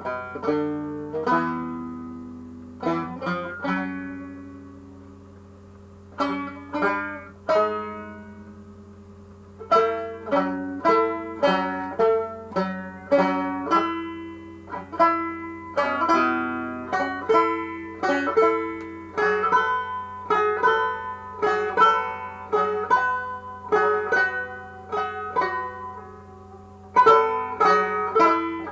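Solo banjo playing an old-time blues instrumental passage: a few plucked notes with pauses over the first several seconds, then steady picking of single notes, louder near the end.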